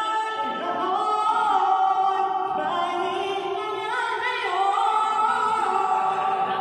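Singing: a voice holding long notes that slide from pitch to pitch, with no clear instrumental beat.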